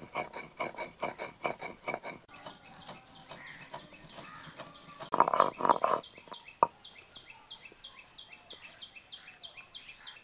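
Rhythmic scraping strokes of poppy seeds, green chillies and mustard seeds being ground into a paste, with a short louder burst of grinding about five seconds in. From about six seconds in, a bird calls a steady run of short, falling chirps, two or three a second.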